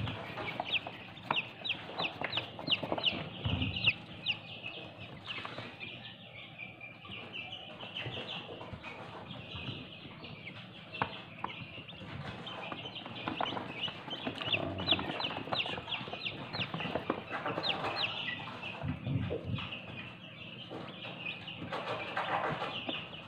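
Newly hatched Brahma chicks peeping: many short, high peeps in quick runs, several chicks calling at once.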